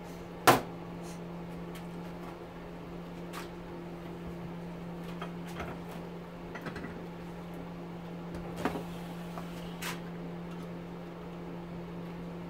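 Hand tools and metal parts knocking on a steel-topped workbench and at a bench vise. There is one sharp metal clack about half a second in, then a few lighter knocks and clicks, over a steady low hum.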